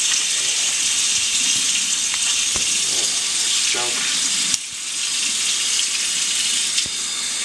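Kitchen faucet running steadily into a sink while a crab is rinsed under the stream, water splashing off the shell and hands. The hiss drops suddenly for a moment about halfway through, then comes back.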